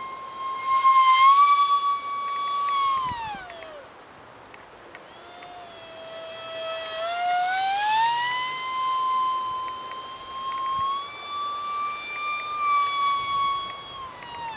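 Electric ducted fan of a micro RC jet (a UMX micro F-16 EDF unit) whining in flight. About three and a half seconds in, the pitch slides steeply down and the whine fades as the fan slows. It returns low a second or so later, climbs back up around seven seconds in, and holds high.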